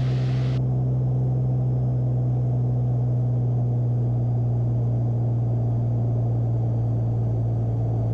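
Beechcraft Bonanza's flat-six piston engine and propeller droning steadily in the cabin, throttled back to cruise power with the propeller set to about 2,300 rpm.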